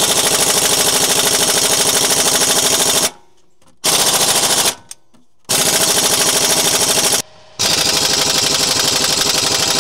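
Impact wrench hammering in rapid runs on the crankshaft pulley bolt of a Honda J30A9 V6, stopping and starting three times; the bolt is stuck and has not broken loose.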